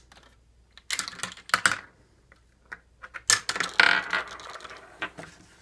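Plastic pieces of a Mouse Trap board game clicking and clattering as they are handled, in two short bursts about a second in and again about three and a half seconds in.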